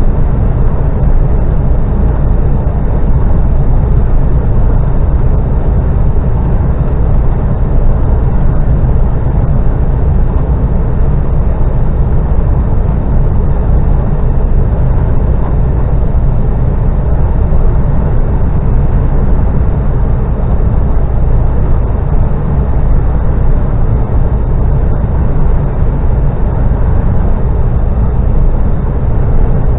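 Steady rumble of a car driving at speed, road and engine noise inside the cabin, even and unbroken.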